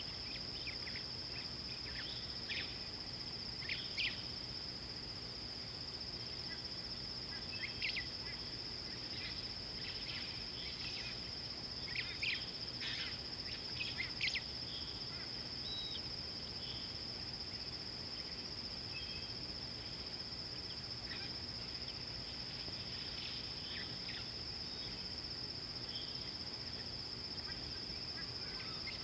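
A steady high-pitched drone of insects, cicadas or crickets, with short bird chirps and calls scattered over it, most of them in the first half.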